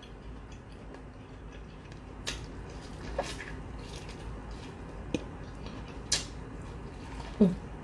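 Biting and chewing seasoned corn on the cob: a few scattered wet clicks and smacks, with a brief hum of enjoyment near the end.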